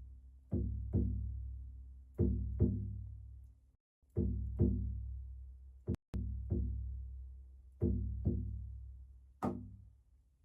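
A hand-played drum beaten slowly in pairs of strokes, a pair every second and a half to two seconds, each hit ringing low and fading away. It is slow, rhythmic drumming of the kind used to ground the listener.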